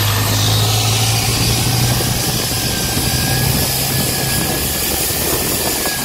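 Motor launch's engine running at speed, a steady low drone under a broad rushing hiss; the drone weakens after about four and a half seconds.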